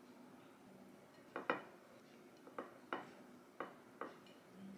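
Light clicks and clinks of a ceramic plate being handled on a stone countertop as rolled wraps are set down on it: about six short taps from about a second in, the second the loudest.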